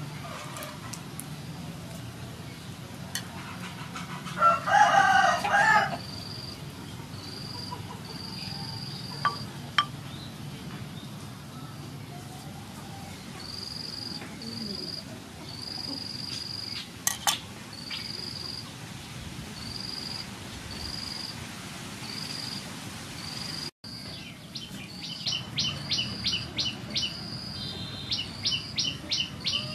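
A rooster crows once, a call of about a second and a half some four seconds in. Short high chirps repeat at a steady pace after it, and rapid twittering of small birds takes over near the end.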